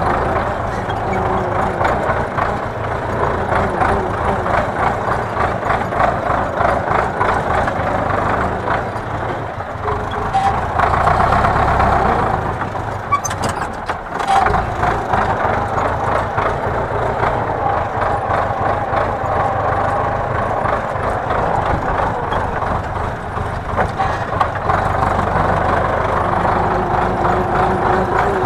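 Tractor engine running steadily, heard from inside the cab, while it drives a bale wrapper wrapping a round bale; the sound swells briefly about eleven seconds in.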